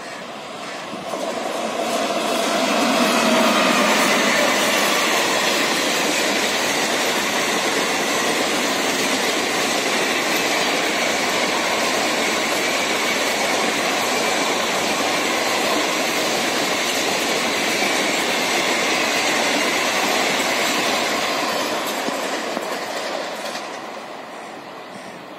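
Express passenger train hauled by a WAP-5 electric locomotive passing close by at speed. The sound builds as the locomotive approaches and is loudest a few seconds in. It then holds as a steady noise of coach wheels on the rails while the coaches go by, and fades near the end as the train draws away.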